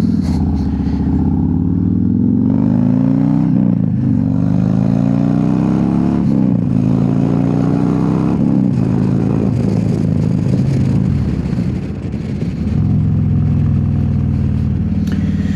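Harley-Davidson Road Glide's V-twin engine under way, revving up through the gears. Its pitch climbs three times, dropping at each upshift, then it settles into a steady cruise, easing off briefly near the end.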